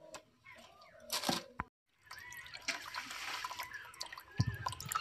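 Water splashing and sloshing as pieces of snakehead (shol) fish are rubbed and washed by hand in a steel bowl of water, with small clicks against the bowl; before this starts there is a short noisy burst about a second in.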